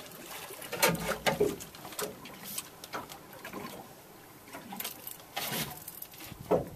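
Scattered knocks, clicks and short creaks as a spinning rod and reel are handled aboard a small boat, with a few louder knocks about a second in and near the end.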